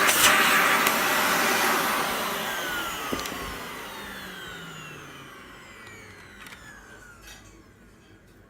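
Dyson DC41 Mk2 vacuum cleaner's motor winding down after being switched off: its whine slides down in pitch and the rush of air fades away over several seconds. A few small clicks are heard along the way.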